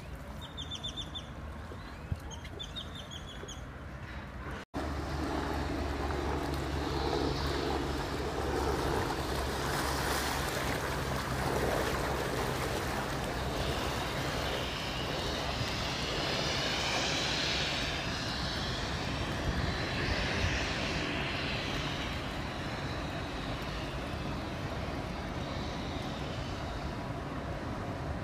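For the first few seconds, small birds chirp in short repeated phrases over a river bank. After a sudden cut, a passing general cargo ship's engine drones steadily and low, with a hiss of water rushing along the hull swelling in the middle.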